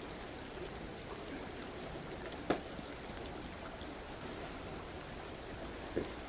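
Steady rush of running water from a stream, with two short sharp knocks, one about two and a half seconds in and one near the end.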